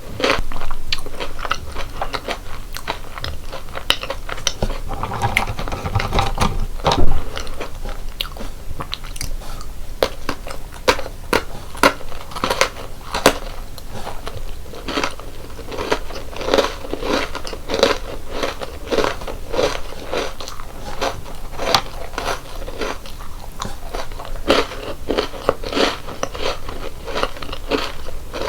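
Close-miked biting and chewing of crunchy chocolate snacks: a steady run of crisp crunches, with a louder bite about seven seconds in.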